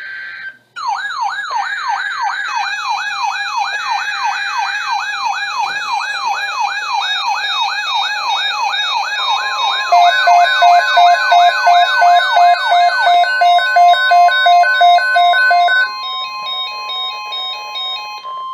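Layered electronic alert sirens: a fast wailing siren sweeping up and down a few times a second, joined about ten seconds in by a high-low two-tone siren. From about nine seconds in, a steady single-pitch tone plays, the NOAA Weather Radio warning alarm tone, and it is left sounding alone near the end. Just under a second in, a short burst of EAS data-header tones cuts off before the sirens begin.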